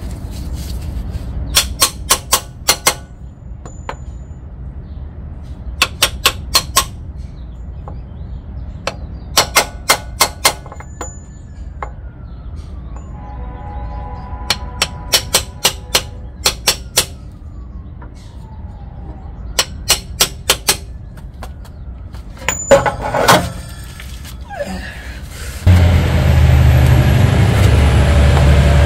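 Hammer strikes on an axle nut socket, driving a new drive shaft oil seal into a 2006 Honda Odyssey's transmission case: sharp metallic taps in six quick bursts of four to six blows each. Near the end a loud, steady rushing noise takes over.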